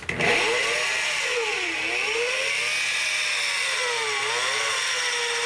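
Electric rotary polisher with a buffing bonnet spinning up and running, its motor whine rising quickly at the start. The pitch sags twice as buffing compound is pressed onto the spinning pad and loads the motor.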